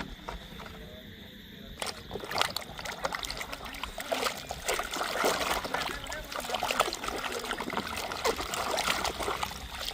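Water splashing and trickling as toy cars are washed by hand. A faint trickle at first, then busier, irregular splashing and small knocks from about two seconds in.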